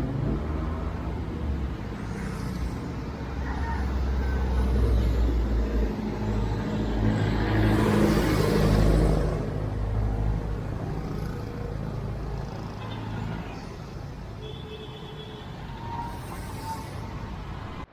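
Street traffic: a heavy vehicle's engine running with a low steady hum, and a loud hiss that swells and fades about eight to nine seconds in as a vehicle passes.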